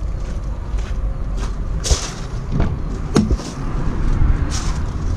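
Nissan Cabstar cab door being opened: a sharp click of the handle and latch about two seconds in and another a little over a second later, over a steady low rumble.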